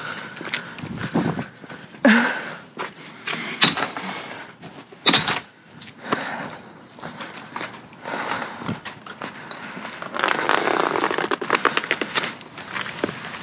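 Scrap metal and junk being rummaged through and handled: scattered knocks and clanks, with a denser rattling scrape about ten seconds in.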